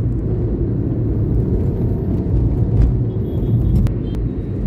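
Steady low rumble of road traffic and a moving vehicle, heard from a vehicle travelling along a city road.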